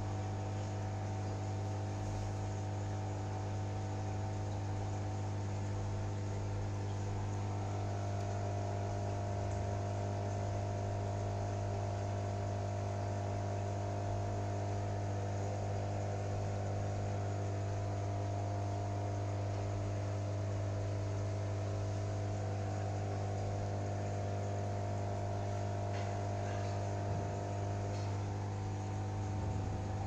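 Steady electrical hum of an aquarium's internal power filter pump: a strong low drone with several fainter steady tones above it. A higher tone joins about seven seconds in and drops out near the end.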